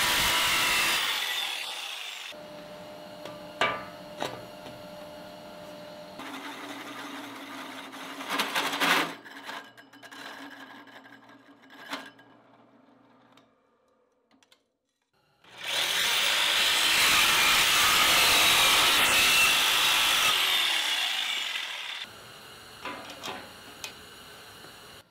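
Shop power tools cutting or sanding aluminum, cut together in short takes. There is a loud stretch of grating tool noise at the start and a longer one from about two-thirds in, with quieter handling clatter and a moment of near silence between them.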